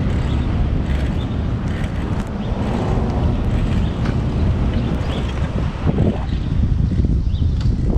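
Wind buffeting the microphone of a camera riding on a moving bicycle: a steady low rumble, with a few stronger gusts near the end.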